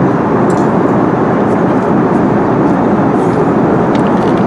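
Steady roar of an airliner cabin in flight: jet engine and airflow noise, even and unbroken, with a few faint clicks.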